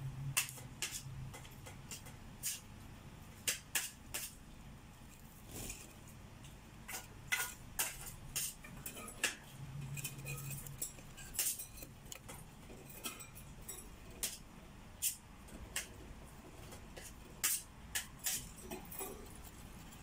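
Irregular sharp metallic clicks and ticks, several a second at times, from budgerigars clambering on a wire cage, their claws and beaks knocking on the metal bars.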